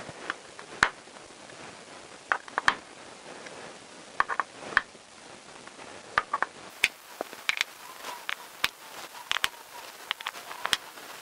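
A handled hex-key driver clicking against and turning in the bolts of a motorcycle engine's clutch cover as each bolt is checked and nipped up: irregular sharp metal clicks and ticks, several in quick clusters.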